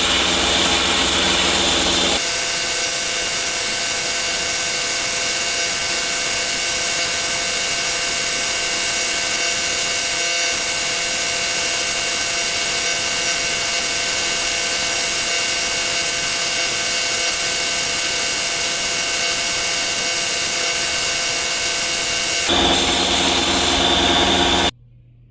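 A power tool running steadily with a constant motor whine. Its sound changes abruptly about two seconds in and again near the end, then cuts off suddenly.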